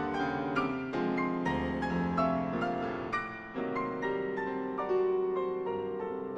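Solo grand piano played live: a dense, chromatic passage of overlapping chords and lines with notes held under the pedal, a little louder from about five seconds in.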